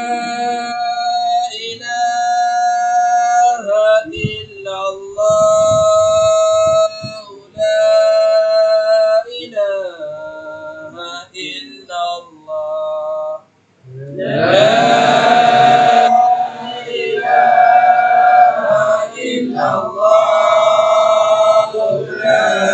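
A man chants a slow Arabic devotional line solo, holding long notes and sliding between them with short breaths between phrases. About 14 seconds in, the group of men joins in, chanting together.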